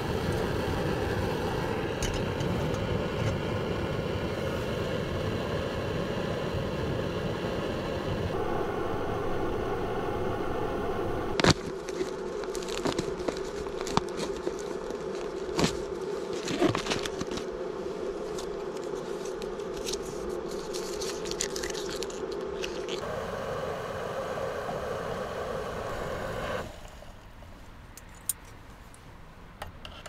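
Backpacking canister stove burning with a steady hiss under a pot of water. Through the middle, a foil freeze-dried meal pouch crinkles and tears as it is opened. About 26 seconds in, the stove is shut off and the hiss stops abruptly.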